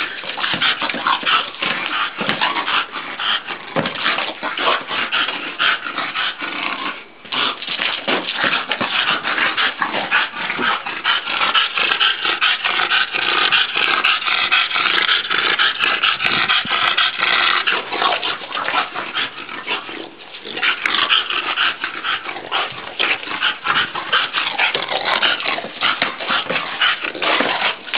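A bulldog making near-continuous noisy vocal sounds as it plays with a large ball, breaking off briefly about seven and twenty seconds in.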